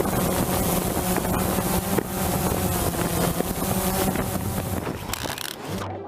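Boat motor running steadily, with wind buffeting the microphone; the sound cuts off abruptly just before the end.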